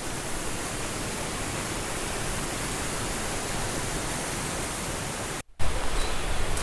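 Steady rushing of waterfalls on a mountain stream. About five and a half seconds in, the sound drops out for a moment and comes back louder.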